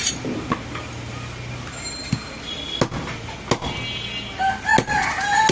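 A heavy butcher's chopper striking goat ribs on a wooden chopping block: several sharp chops, irregularly spaced about a second apart.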